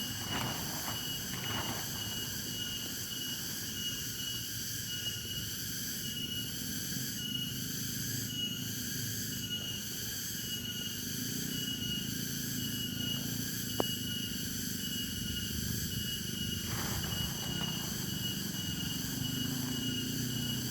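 Night insect chorus: a steady high-pitched buzzing with a short chirp repeating at an even rate, over a low steady hum. A single click about two-thirds of the way through.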